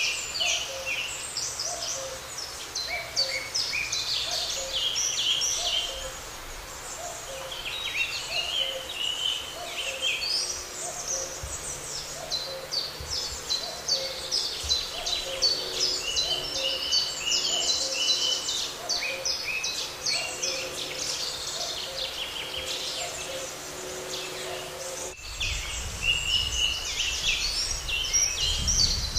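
Chorus of songbirds chirping and trilling, with a low hooting note repeating about once a second beneath it. A low rumble comes in suddenly near the end.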